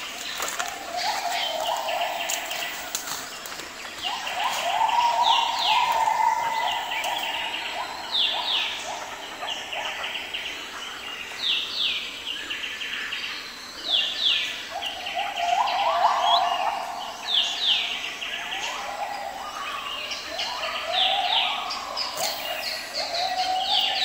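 Tropical forest birds calling over and over with short, falling high notes, over a lower wavering drone that swells and fades several times.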